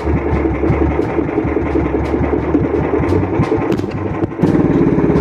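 Small engine of a motorised outrigger fishing boat running steadily under way, pulsing evenly; it grows louder about four seconds in.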